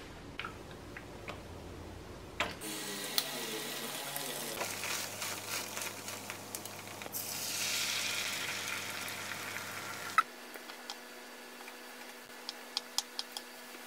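Beaten egg sizzling in a hot frying pan while a spatula pushes it about, the sizzle swelling for a few seconds. Then a knife slicing Spam on a wooden cutting board, with a quick run of light taps near the end.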